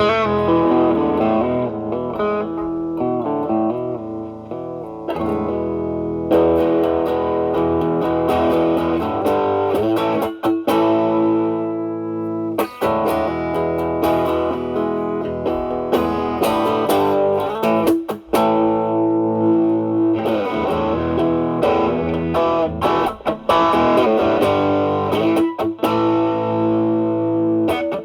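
Stratocaster with single-coil pickups played through an Ibanez Tube Screamer Mini overdrive pedal at full drive into the clean channel of a Marshall Valvestate amp. Lead lines of singing overdriven notes, broken by a few brief pauses.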